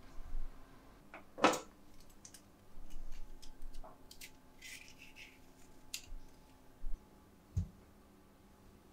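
Kitchen handling sounds while a fruit plate is prepared: a sharp knock about one and a half seconds in, a short stretch of scraping and cutting, then scattered light clicks and a low thud near the end.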